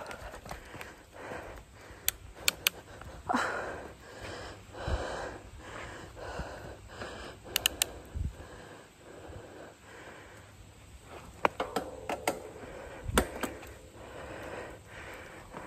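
Bicycle riding along a leaf-strewn dirt trail: tyre noise over the ground, with sharp clicks and rattles from the bike in a few clusters and the rider's breathing.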